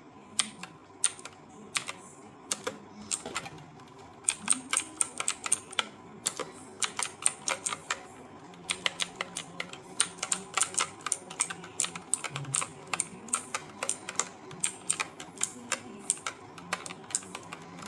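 Keys of an Antesports MK3400 Pro V3 mechanical gaming keyboard being typed on, sharp clacks in irregular runs: some single strokes, some quick flurries.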